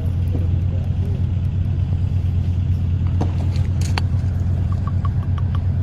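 A steady low mechanical hum, like an engine running at constant speed, with a few faint clicks in the middle.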